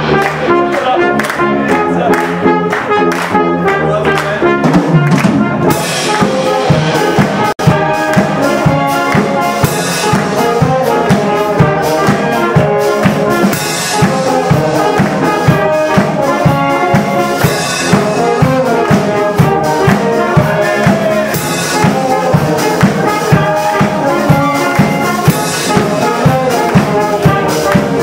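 Brass band playing live, with brass carrying the tune and a steady drum beat coming in about five seconds in.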